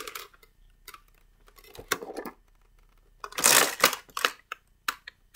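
Cardboard advent calendar box being handled and folded shut: scraping and rustling of the card panels with several sharp clicks, the loudest scrape about three and a half seconds in.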